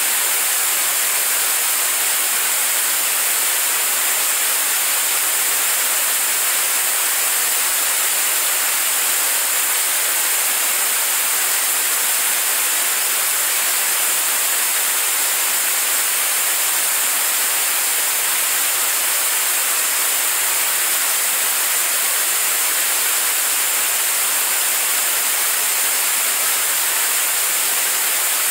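Staged-combustion liquid rocket engine prototype firing steadily on a test stand, a constant, unbroken rushing noise that does not change in level.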